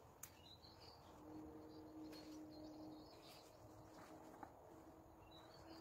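Near silence: faint outdoor background with a faint steady hum and a few faint high chirps.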